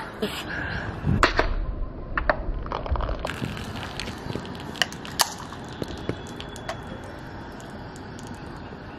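Sharp clicks and cracks of an aluminium drinks can being handled and opened, the loudest a little before halfway through, over a steady outdoor background hiss.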